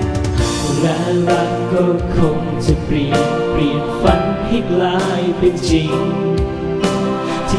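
Music: a Thai song playing.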